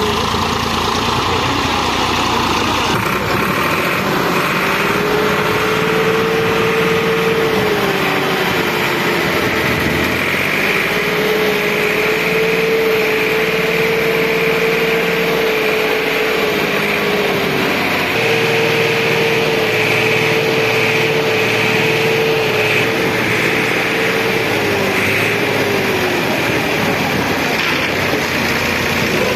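Massey Ferguson tractor's diesel engine running at raised revs, with a steady whine that holds for several seconds and then sags in pitch, three times over.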